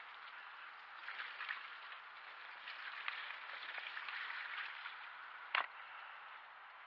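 Full-suspension Cannondale mountain bike rolling over a wet, muddy trail: steady tyre crackle and rattle. A single sharp knock a little past the middle as the wheels cross a wooden plank bridge.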